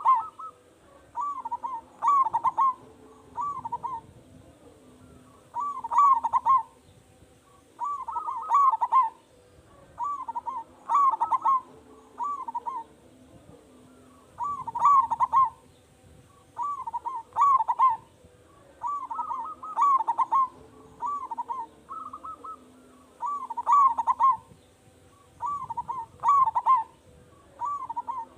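Zebra dove (perkutut) cooing with a strong, full voice: short phrases of several quick, wavering notes, repeated every second or two.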